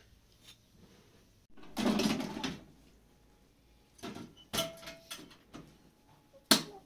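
Kitchenware being handled: a rustling scrape about two seconds in, then a few sharp knocks and clinks, the loudest one near the end.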